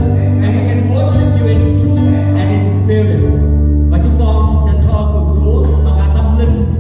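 Live worship band playing, with sustained bass notes, chords and drum hits, and singing.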